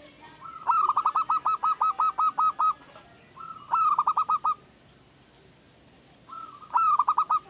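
Male zebra dove singing: three bouts of quick, repeated cooing notes, each opening with a short rising note, the first bout the longest and the last cut off at the end.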